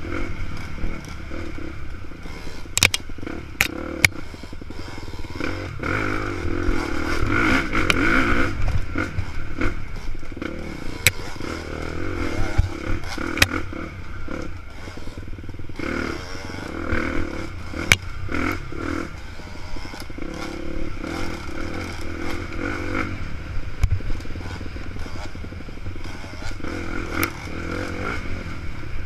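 KTM enduro dirt bike engine being ridden, its revs rising and falling every few seconds, with sharp knocks and clatter from the bike jolting over the rough trail.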